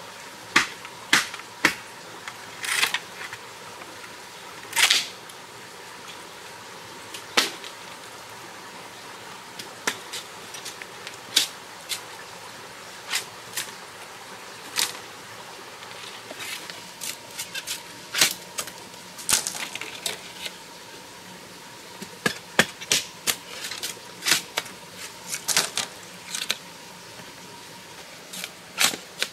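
Machete chopping and knocking on bamboo: irregular sharp cracks, some in quick runs, over the steady rush of a stream.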